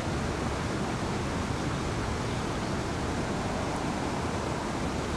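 Steady, even rushing noise of open-air ambience, with no distinct events and no change in level.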